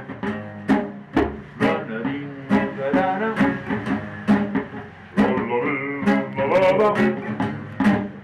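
Background music: plucked guitar with a steady beat and a melody line over it.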